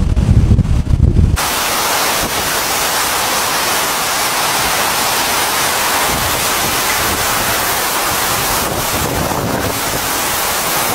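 Wind buffeting the microphone over surging floodwater, then, about a second and a half in, a sudden switch to a steady hiss of hurricane wind and heavy driving rain.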